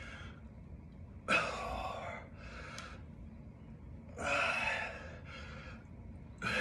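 A man's heavy breathing from exertion during dumbbell goblet squats: a loud rushing breath followed by a softer one, twice, about three seconds apart.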